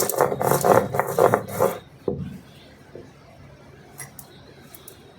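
Rapid scraping and clattering of kitchen utensils against pots or dishes for about two seconds, ending in a single sharp knock, then a few faint clicks.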